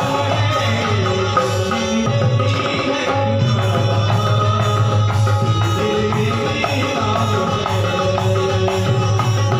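Instrumental music with a steady drum rhythm under melodic instruments, in a break between sung lines of a Hindi song.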